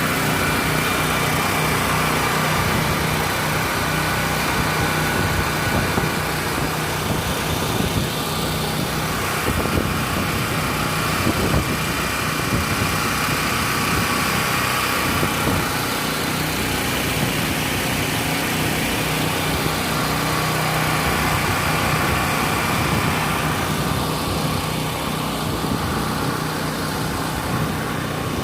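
Portable gasoline generators running at a steady speed: a continuous engine hum.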